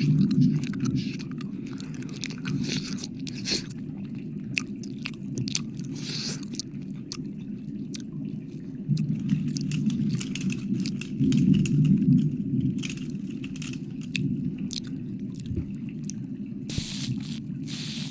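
Close-up wet mouth sounds into the microphone: licking and smacking, a dense run of small wet clicks. Near the end comes a breathy hiss of air blown at the microphone.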